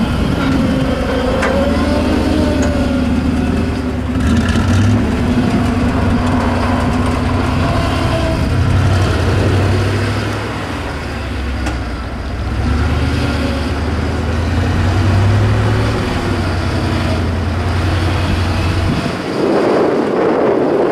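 Engine of a ZIL-131 6x6 truck working off-road, its low drone rising and falling with the throttle as the truck crawls over the course. Near the end the engine note drops out under a rushing noise.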